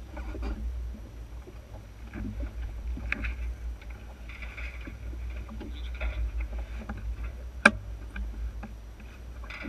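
Water slapping and rushing along the hull of an Enterprise sailing dinghy under way, with a steady deep rumble of wind on the microphone. A single sharp click, likely a fitting or block knocking, sounds about three-quarters of the way through.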